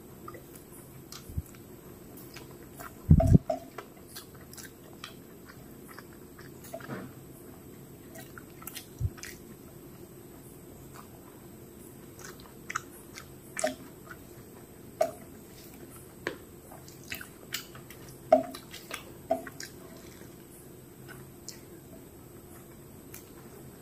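Close-miked sounds of a person eating rice and fish curry by hand: chewing, with scattered small clicks of mouth and fingers on the plate as the rice is mixed. A loud low double thump sounds about three seconds in.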